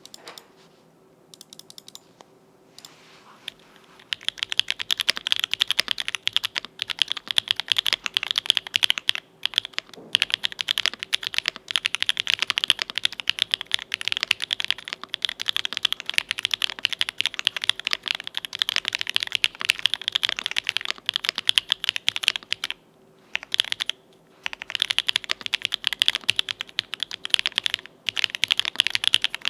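Typing on a mechanical keyboard with lubed Owlab Tungsten linear switches (63 g, nylon housings, POM stems), an aluminium plate and GMK keycaps. A few scattered keystrokes at first, then fast continuous typing from about four seconds in, with a brief pause near the end before it resumes.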